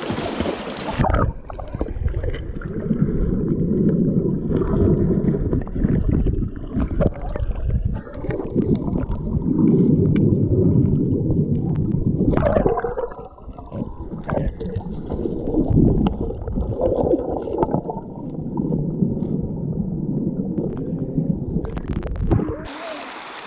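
Stream water heard through a camera held underwater: loud, muffled, low gurgling and sloshing with scattered knocks as hands stir the water and grab at a fish. It begins with a splash about a second in and gives way to the open, hissing stream sound near the end.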